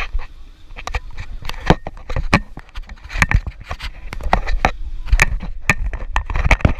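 Close handling noise on a GoPro camera: fingers and a glove rubbing and knocking on the housing, an irregular run of sharp clicks and bumps over a low rumble.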